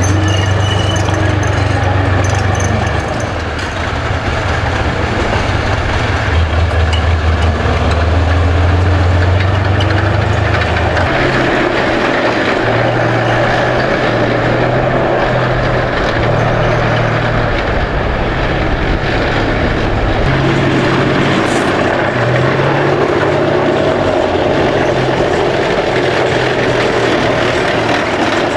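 T-55 tank's V-12 diesel engine running as the tank drives, a loud, steady, deep engine sound. The engine note shifts about eleven seconds in.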